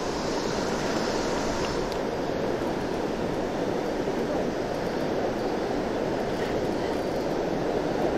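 Steady rush of a shallow river flowing over a stony bed.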